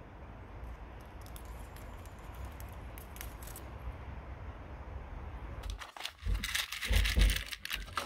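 Steady background hiss with a low rumble. About six seconds in it gives way to loud, irregular clattering and rattling as a small plastic parts-cabinet drawer of metal panel pins is pulled out and handled.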